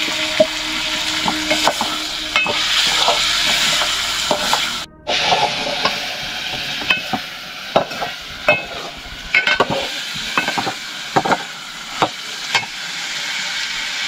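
Food sizzling in a hot pan while being stirred, with repeated clinks and scrapes of a metal spoon against the pan. The sound cuts out briefly about five seconds in.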